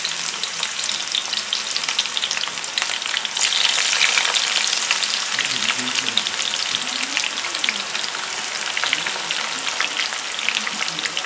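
Thin eggplant slices frying in hot oil in a pan: a steady sizzle with dense crackling, getting louder a little over three seconds in.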